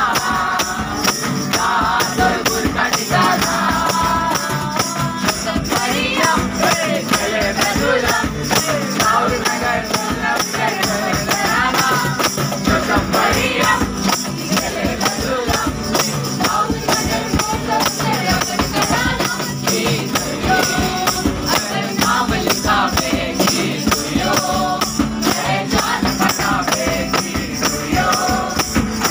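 A group of mixed voices singing a Christmas carol together, with a hand-held tambourine keeping a steady jingling beat.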